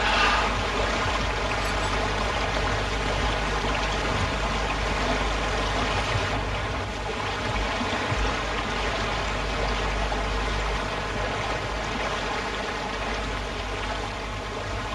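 Steady rush of a flowing mountain stream, with a low hum underneath.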